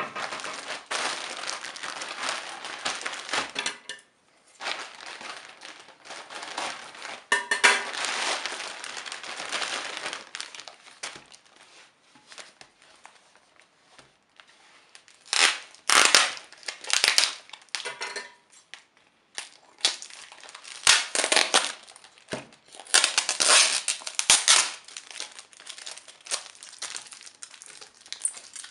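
Plastic courier mailer being torn open and crumpled, a dense crinkling with a short break about four seconds in, lasting about ten seconds. Then a taped parcel is handled and its packing tape is cut with scissors, in short, sharp crackles and clicks.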